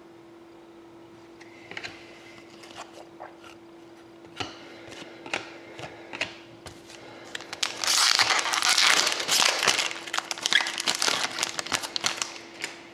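Trading cards being handled with scattered light clicks and taps, then, about eight seconds in, a card pack's wrapper torn open and crinkled loudly for several seconds. A faint steady hum runs underneath.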